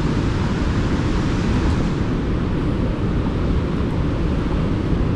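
Burgess Falls running high, a loud, steady rush of falling water heard up close at the base of the falls.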